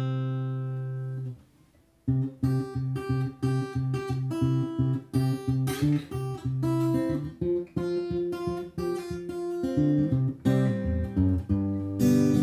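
Steel-string acoustic guitar: a single strummed chord rings and fades, then after a short pause rhythmic strumming of short, choppy chord strokes.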